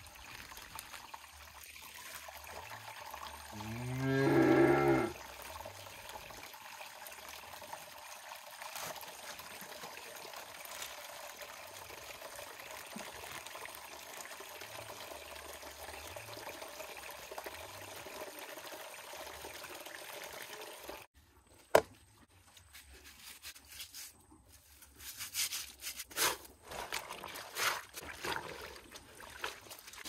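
A cow moos once, a single drawn-out low call about four seconds in and the loudest sound here. Under it water runs steadily from a tank tap. Near the end come a few short splashes of laundry being worked in a basin.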